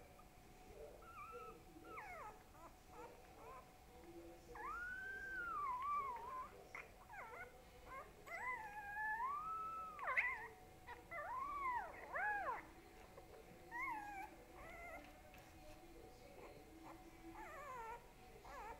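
A young dog howling and whining: a run of long, wavering high cries that rise and fall in pitch, loudest in the middle, with a few fainter cries near the end.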